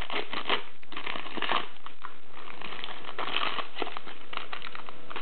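Wrapper of a 2000-01 Upper Deck Hardcourt basketball card pack crinkling in the hands as the pack is opened and the cards pulled out, an uneven run of crackles and rustles.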